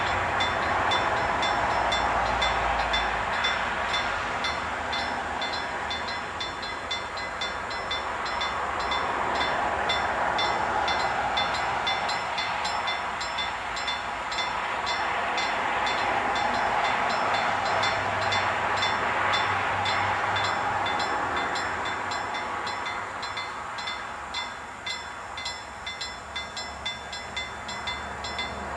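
Freight train rolling past a level crossing: a steady rushing rumble of wagons on the rails, with rhythmic wheel clatter that stands out near the end. Over it, the level-crossing bell rings in quick, regular strokes.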